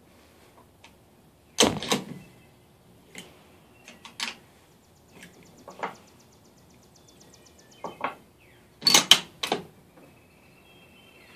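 Weatherby Vanguard bolt-action rifle being reloaded: sharp metallic clacks of the bolt being worked, two loud ones about a second and a half in and a quick cluster of three about nine seconds in, with lighter clicks of cartridges being handled and loaded in between.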